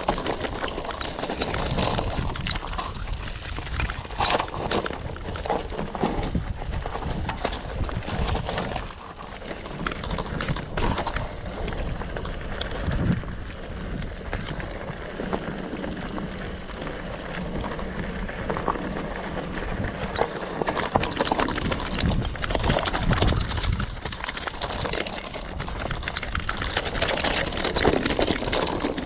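Mountain bike riding down a rocky natural trail: tyres crunching over loose stones with a dense, irregular clatter of chain and frame.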